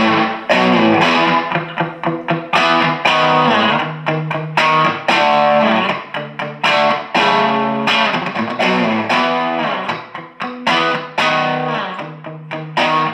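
Electric guitar played through a Dynamo Flight Rig tube preamp's clean channel, chords and riffs picked hard so the clean sound breaks up into a light crunch.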